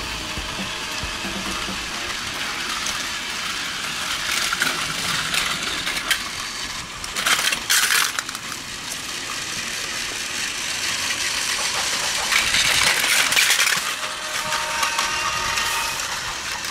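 Battery-powered Plarail toy trains running on plastic track: a steady gear-motor whir with the rattle of plastic wheels over the track joints. It gets louder as trains pass close, briefly about seven seconds in and for a longer stretch about twelve to fourteen seconds in.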